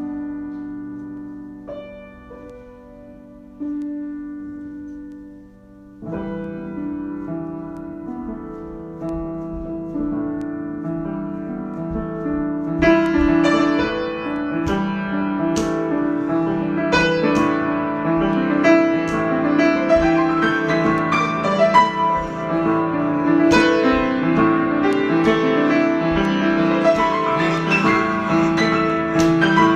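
Solo piano improvisation: a few held chords ringing and fading, then from about six seconds in a busier passage of many notes that builds louder.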